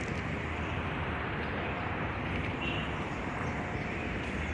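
Steady city street traffic noise: an even hum with no single event standing out.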